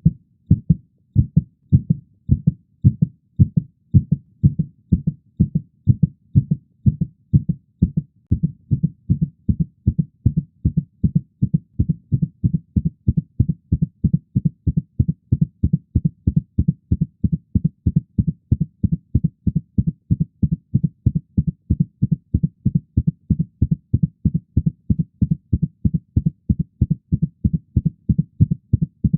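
Heartbeat sound effect: a regular run of low, dull beats that quickens about eight seconds in and then holds a faster steady pace.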